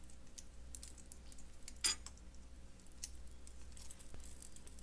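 Faint small metallic clicks and tinkles of jewelry pliers working copper wire and chain while wrapping a wire loop, with one sharper click about two seconds in.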